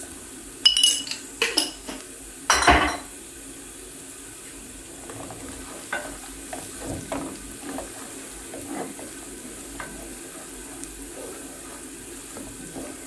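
A few sharp knocks with a metallic ring on an aluminium cooking pot in the first three seconds, then a wooden spoon stirring and scraping onions, spices and oil around the pot, with a light sizzle of frying.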